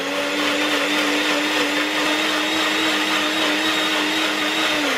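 NutriBullet 900 Series blender running at full speed, blending berries and coconut water into a smooth liquid: a steady motor whine over a rushing noise. Right at the end the pitch begins to fall as the motor winds down.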